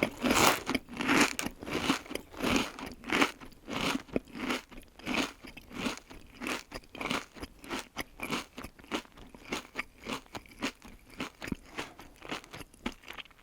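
A person chewing crunchy food, a steady rhythm of crisp crunches about one and a half to two a second, growing gradually fainter and softer toward the end.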